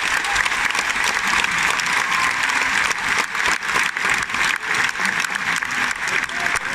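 Large bullring crowd applauding: dense, sustained clapping from thousands of spectators.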